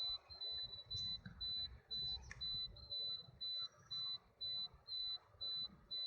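Electronic warning beeper in the Toyota Verso beeping steadily, one high beep about twice a second, with the ignition switched off.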